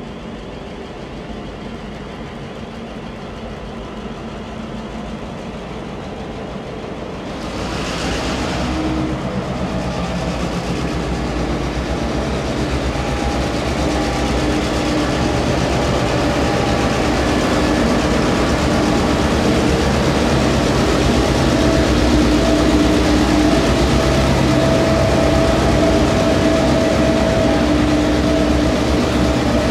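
Diesel-electric freight locomotives B80, P17 and S317 rolling slowly past at the head of a grain train. A low engine drone grows louder, jumps sharply as the lead locomotive draws level about seven seconds in, then holds as a loud, steady engine noise with a humming tone as the locomotives pass close by.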